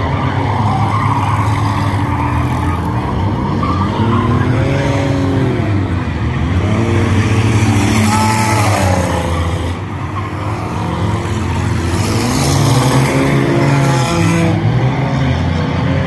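Race car engines running around a short oval, their pitch rising and falling several times as cars speed up, lift and pass.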